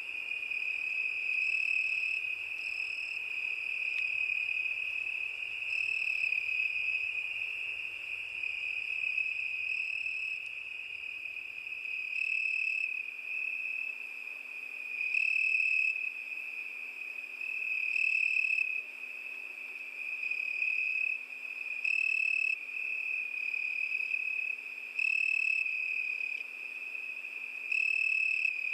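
Crickets singing at night: a continuous high, steady trill, with a louder chirping stretch of about a second rising over it every two to four seconds.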